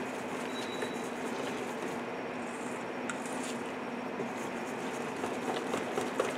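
Wire whisk beating thick besan (gram-flour) batter in a stainless steel bowl: wet squishing with light clicks of the whisk against the bowl, the clicks coming more often near the end. A steady low hum runs underneath.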